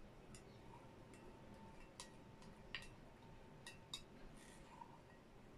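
Near silence broken by a handful of faint clicks of a spoon against a glass dessert cup while eating, with one or two of them ringing briefly.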